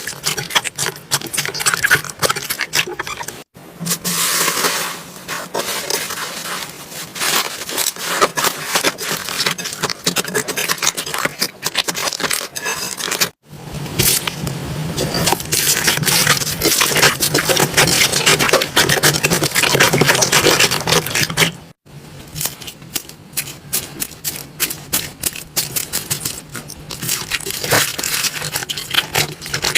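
Slime being squeezed, pressed and stretched by hand, making dense rapid clicks and crackles. The sound breaks off abruptly three times, about three and a half, thirteen and twenty-two seconds in, and starts again each time with a somewhat different texture.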